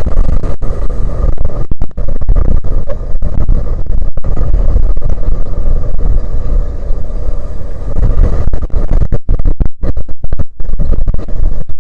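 Strong wind buffeting the microphone: a loud, rough, deep rumble that surges and breaks up, with brief sudden dropouts, most of them in the last few seconds.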